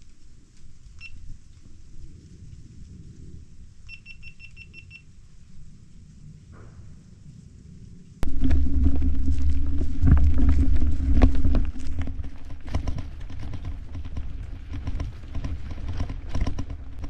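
Low wind rumble on the camera microphone, with a quick run of high pips about four seconds in. About eight seconds in it jumps to a much louder rumble with dense crackling and clicks: a loaded ZiZZO Forte folding bike rolling over a dirt trail, wind buffeting the microphone.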